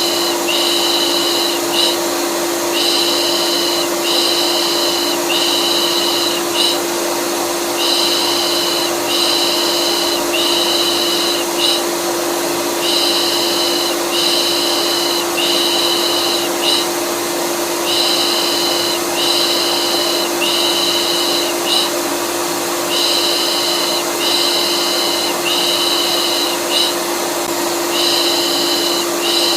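Vacuum cleaner running steadily with a constant hum, used as soothing white noise for a colicky baby. Over it, a rhythmic 'pış pış' shushing comes in sets of about four strokes, repeating every five seconds or so.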